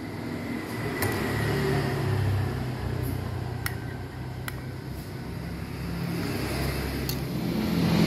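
Low rumble of passing motor traffic that swells and fades, with a few sharp clinks of a metal spoon against a bowl and a plastic sambal cup.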